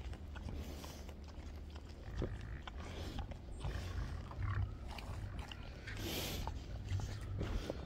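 A pig grunting close by, over a steady low rumble.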